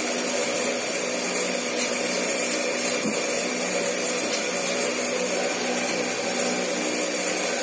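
Steady hum of a running electric motor with a constant airy hiss, unchanging throughout.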